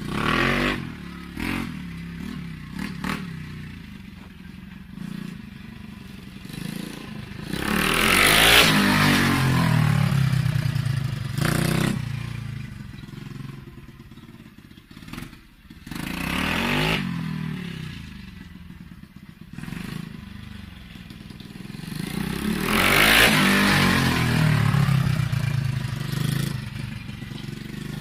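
125cc Stomp pit bike's single-cylinder four-stroke engine revving up and down as it is ridden around, loudest as it comes close about eight seconds in and again about twenty-three seconds in, fading in between.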